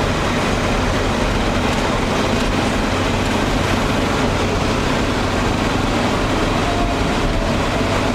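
Steady engine and tyre noise of a vehicle driving on an asphalt road, heard inside its cabin, with a constant low hum.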